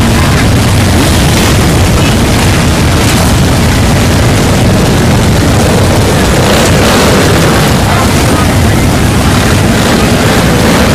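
Many motorcycles, mostly cruisers and touring bikes with some sport bikes, riding slowly past in a parade. Their engines run loud and steady without a break, with crowd voices mixed in.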